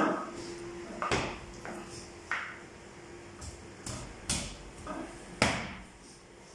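Knife scraping and knocking against a singed sheep's head on a board: a handful of short, sharp strokes, the loudest right at the start and about five and a half seconds in, as the burnt hair and char are scraped off.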